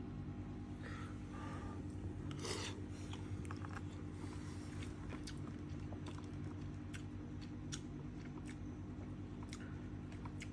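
Someone eating pasta bake: scattered light clicks and short scrapes with chewing, over a steady low hum.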